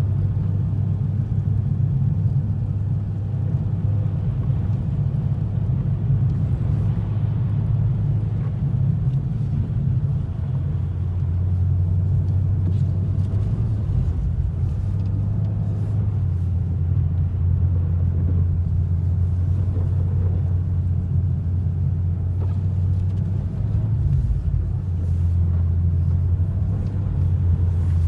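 Steady low rumble inside a moving car's cabin: engine and tyre noise while driving on a snow-covered road.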